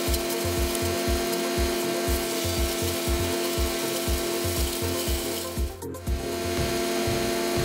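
Wood chipper running and chipping wood: a steady mechanical hum with grinding, rasping wood noise and regular low thumps about three times a second. The sound drops out briefly about six seconds in.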